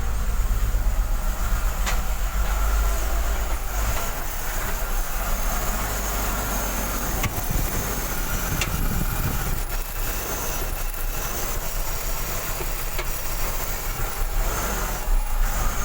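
BMW M54 3.0-litre inline-six idling roughly just after a morning cold start, misfiring (running on fewer than six cylinders) with an occasional knock. The owner heard the knock near cylinders 5 and 6 and traced the fault to a dirty throttle body.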